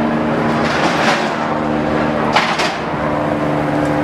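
An engine idling steadily, with sharp metal clanks from the trailer's tie-down hardware as a car is fastened onto it: one about a second in and two close together around the middle.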